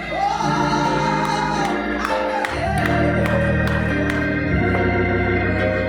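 Slow gospel hymn: a woman's voice holds a long sung note, then electric organ chords carry on alone. The organ chords change twice.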